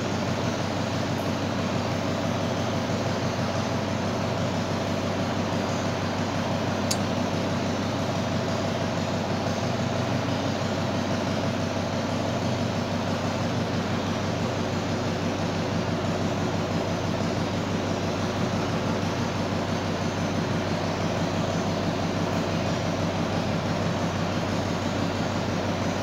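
Steady machine noise: an even hiss with a low hum under it, unchanging throughout.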